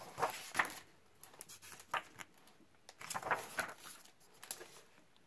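Pages of a hardcover picture book being turned by hand: two bouts of paper rustling and sliding, one at the start and another about three seconds in, with a quiet pause between.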